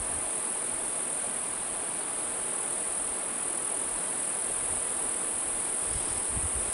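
Steady, high-pitched chorus of crickets or other insects in the woods, with a few soft footfalls on the forest floor near the end.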